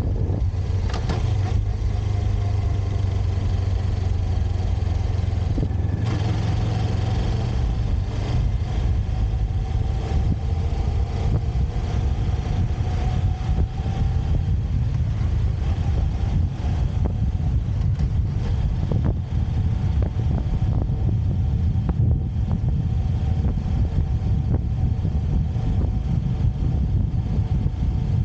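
A motorcycle being ridden, its engine and road noise running steadily with a heavy low rumble.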